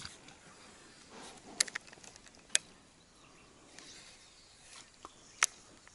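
Quiet outdoor ambience broken by three short, sharp clicks, about a second and a half, two and a half and five and a half seconds in.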